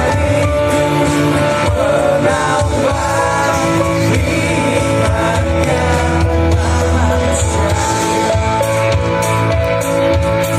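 Pop-rock band music with a singing voice over guitar, bass and drums, playing steadily.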